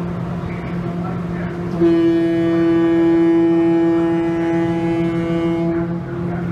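Ferry's horn sounding one long, steady blast of about four seconds, starting about two seconds in, over the steady drone of the ship's engines.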